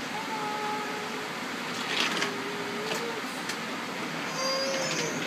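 Wooden toy trains knocking on a wooden track table twice, over steady store background noise with scattered voices; a child's voice rises briefly near the end.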